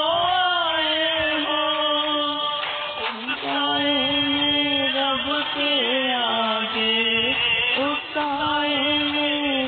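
Urdu devotional naat, sung in long, drawn-out notes that bend and waver.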